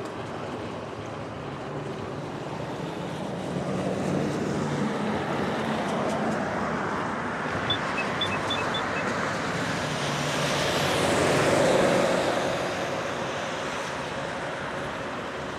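Cars passing on a wet road, their tyres hissing on the wet asphalt. One pass swells louder about three-quarters of the way through. Four short high chirps come about halfway.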